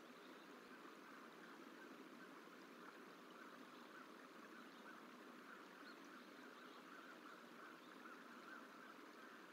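Near silence: faint, steady outdoor background hiss picked up by the nest camera's microphone.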